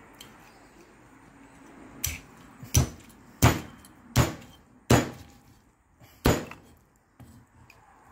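Cleaver chopping through steamed bone-in chicken on a round wooden chopping block: six sharp chops at an even pace starting about two seconds in, with a short pause before the last.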